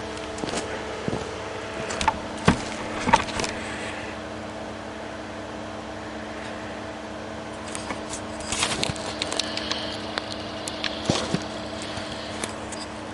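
Excavator's diesel engine idling with a steady hum, with scattered clicks, knocks and rustles of someone moving about and handling rope and gear, busiest in the first few seconds and again past the middle.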